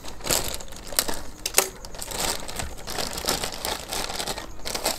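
Plastic courier mailer bag crinkling and rustling as it is cut open and handled, with a few sharp crackles.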